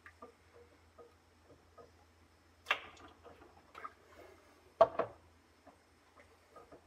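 Glass mason jar handled with silicone-tipped tongs as it is lifted out of a canning pot's water bath and set down: two sharp knocks about two seconds apart, the second louder, with light clicks of the tongs and glass around them.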